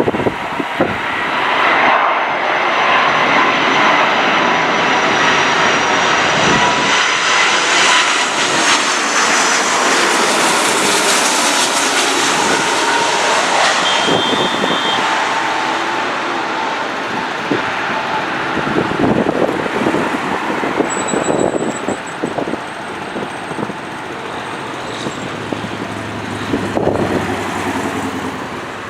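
Airbus A330 jetliner on its landing approach, passing close by: the jet engine noise swells to a peak about ten seconds in and then slowly fades, with steady whining tones running through it.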